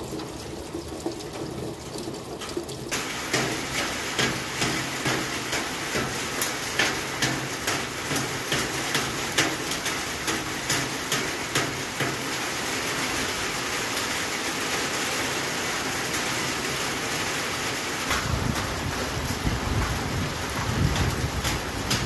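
Steady rain falling, with sharp taps coming about twice a second through the first half, and a low rumble near the end.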